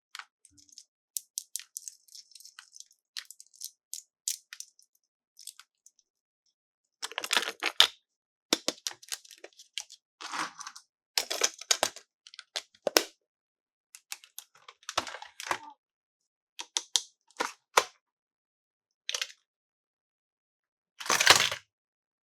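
Toy packaging being opened by hand: crinkling and tearing with small crackles and clicks, in short irregular bursts with pauses between them. It is faint and high at first and louder from about seven seconds in.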